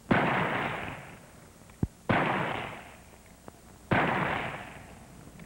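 Three rifle shots about two seconds apart at a firing range, each sharp crack trailing off in an echo, with a short knock just before the second shot.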